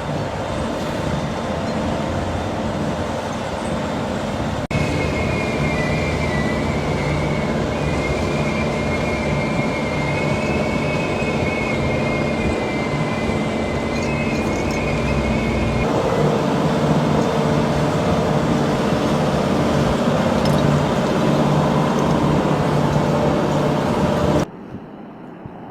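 Heavy excavator and conveyor machinery running steadily with a deep engine hum. A wavering high-pitched squeal runs from about five seconds in to about sixteen seconds in. The noise drops off abruptly near the end.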